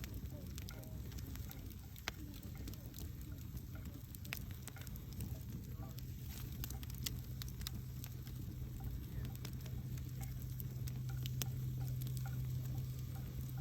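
Wood campfire crackling, with frequent sharp pops and snaps over a soft hiss. A steady low hum runs underneath and grows stronger about two-thirds of the way through.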